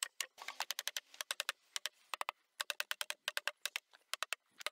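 Rapid light hammer taps on a wooden floorboard, in quick runs of several taps with short pauses between them. The board is being driven into its grooved frame so the open gap in the joint closes up tight.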